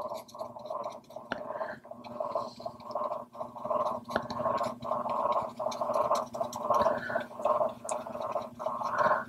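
Paintbrush scrubbing acrylic paint onto canvas in short back-and-forth strokes, about two a second, working the paint up to the edge of masking tape.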